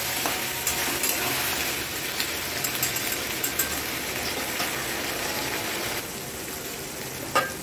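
Chopped vegetables sizzling as they stir-fry in an aluminium kadai over a gas burner, with a metal spatula scraping and clicking now and then in the first few seconds. The sizzle drops a little about six seconds in, and a short sharp knock comes just before the end.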